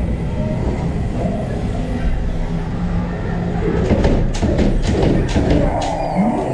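Ghost-train ride car rumbling along its track through the dark. About four seconds in comes a quick run of sharp knocks and clacks.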